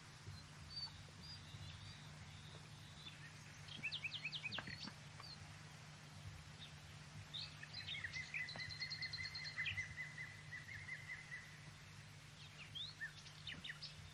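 Songbirds singing in short bursts: a quick run of chirps about four seconds in, a long trill from about eight to eleven seconds, and a few more chirps near the end, over a steady low hum.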